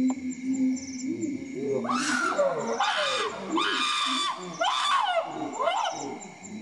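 Chimpanzee pant-hoot: a run of hoots that climbs in pitch and speed, building to several loud screams about two to five seconds in, then tailing off near the end. A steady high chirping chorus runs behind it.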